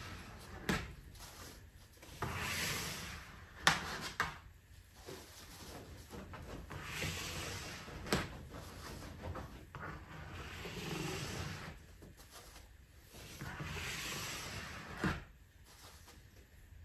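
A plastic card scraping excess glue across the face of a glued jigsaw puzzle in repeated strokes of a second or two each, with a few sharp clicks between strokes.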